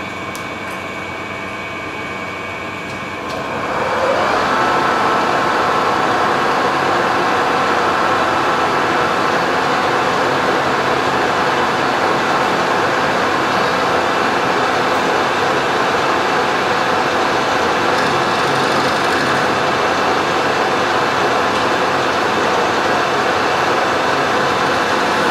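Colchester metal lathe running with a steady whine. About four seconds in a louder, rougher cutting noise joins as the tool starts facing the end of a free-machining steel bar, and holds steady.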